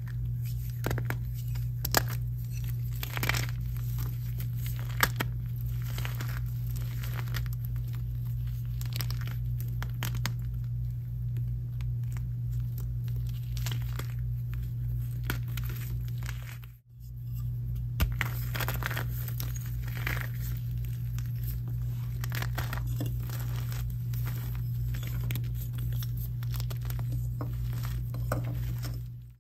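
Blocks of gym chalk crushed and crumbled in bare hands: a dense run of crisp crunches and gritty crumbling. It breaks off briefly about seventeen seconds in. A steady low hum runs underneath throughout.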